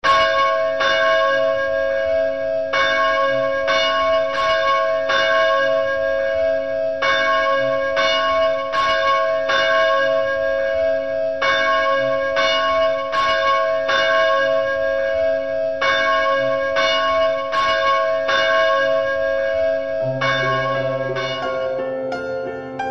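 Church bells ringing in a repeating pattern of four strokes, each tone ringing on between strikes. About twenty seconds in, a soft instrumental introduction begins under the last strokes.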